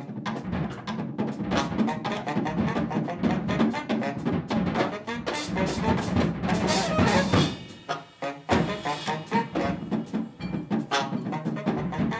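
Alto saxophone and drum kit playing free-improvised jazz together: dense, busy drumming under the saxophone. Just before two-thirds through, the playing almost breaks off, then comes back in with a loud hit.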